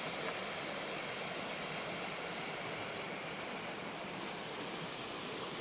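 A small river running steadily over a shallow rocky riffle: an even, unbroken rush of water.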